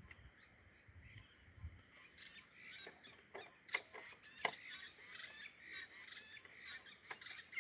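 Faint outdoor ambience: scattered short bird calls over a steady high hiss, with a few sharp clicks in the middle.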